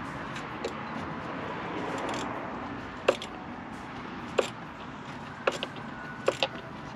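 A handful of short, sharp metallic clicks and knocks from hand tools working on the engine bay, about six in all, spread unevenly, over a steady background noise.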